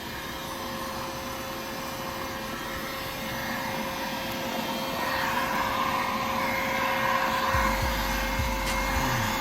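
Electric heat gun blowing steadily with a constant motor hum, heating freshly applied window tint film on a car window so it sticks to the glass. It grows a little louder about halfway through, and a low rumble joins near the end.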